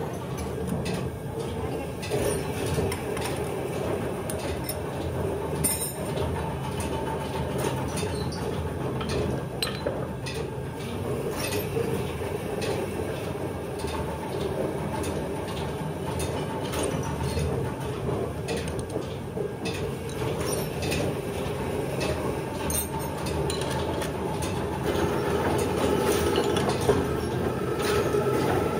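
Workshop machinery running steadily with a low hum and a held mid-pitched tone, with scattered metallic clicks and clinks. It grows louder for the last few seconds.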